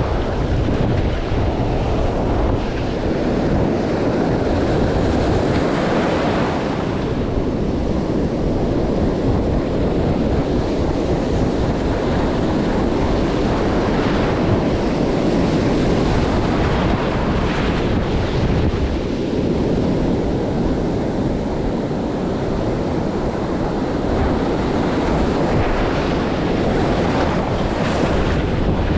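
Ocean surf breaking and washing on a rocky shoreline, swelling and easing, with wind buffeting the microphone in a steady low rumble.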